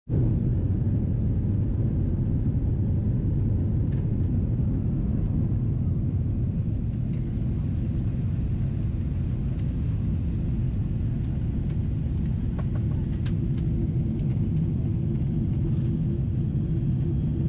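Steady cabin noise of a Boeing 777-300ER in flight, heard from a window seat: the deep rumble of its GE90 engines and airflow, with a steady hum growing stronger about two-thirds of the way through and a few faint clicks.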